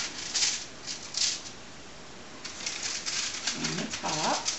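Aluminium foil on a sheet pan crinkling and rustling in short bursts as hands fold soft bread dough over the filling.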